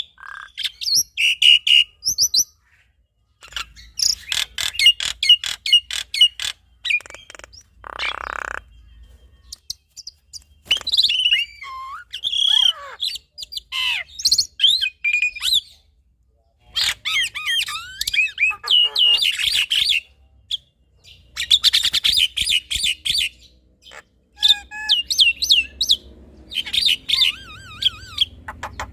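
Caged mynas singing, a black-winged myna and a Javan myna: varied chattering song of sharp chirps, whistles and fast clicking rattles in phrases broken by short pauses. About eight seconds in comes a harsh rasping call lasting about half a second.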